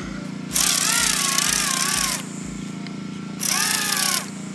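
A pressure washer's engine runs steadily with a low pulsing thump about twice a second. Twice, a louder hissing whine with a wavering pitch rises over it as the mini drone's small motors spin up the propellers driving the LEGO boat, the second burst shorter.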